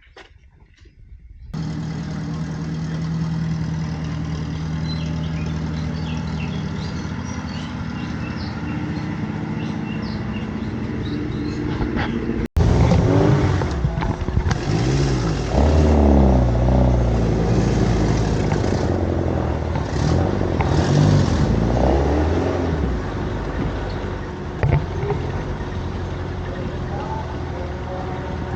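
A vehicle engine running steadily. After a sudden cut, louder engine noise follows, its pitch rising and falling as engines are revved, with some voices mixed in.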